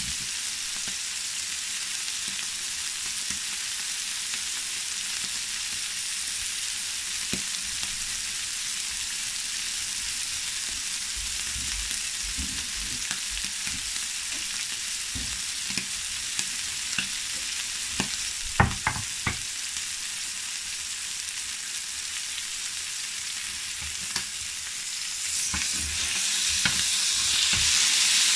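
Beef steaks frying in hot fat in a pan, with a steady sizzle. A few sharp pops come about two-thirds of the way through, and the sizzle grows louder near the end.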